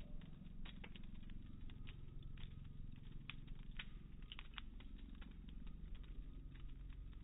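Wood fire in a brick fire pit crackling: irregular sharp pops and snaps over a low steady rumble.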